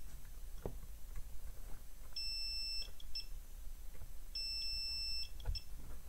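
Digital multimeter beeping twice, about two seconds apart, as its test probes are held on a component of the ECU circuit board; the second beep is slightly longer than the first.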